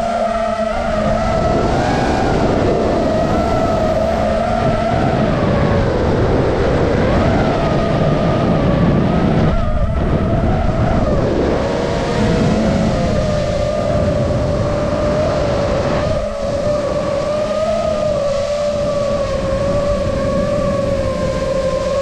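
FPV quadcopter's motors and propellers whining close to the microphone, the pitch wavering up and down with the throttle, over a rush of air noise. The sound dips briefly twice.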